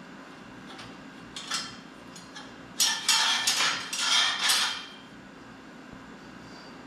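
Steel parts clanking and clinking together as AR500 steel target plates are hung on a steel stand: one clank about a second and a half in, then a quick run of ringing clanks for about two seconds.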